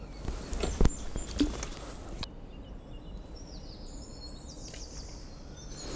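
Riverside outdoor ambience: a steady low rumble with a couple of soft knocks in the first second, and faint high bird chirps about three to four seconds in.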